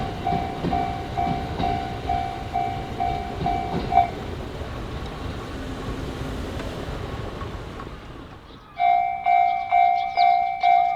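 Level-crossing warning bell ringing in even dings, about two and a half a second, while a train passes with a low rumble and a few sharp wheel clacks. Bell and train noise stop about four seconds in; the bell starts ringing again a couple of seconds before the end.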